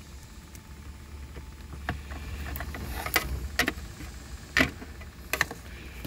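Scattered short clicks and knocks of pliers gripping and pulling on a gear-shift cable among the plastic parts of an automatic shifter, over a steady low rumble. The sharpest clicks come about three seconds in and again near five seconds.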